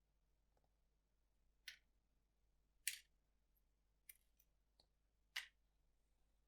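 Sharp clicks and snaps from mechanical keyboard parts being handled and fitted: three louder snaps spaced a second or more apart, with a few lighter ticks between them.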